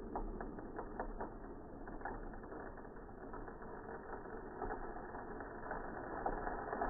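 Water jetting from a pellet hole in a plastic bottle, spattering and crackling against a wooden board and tabletop, with irregular small clicks over a steady hiss; the sound is dull, with no highs.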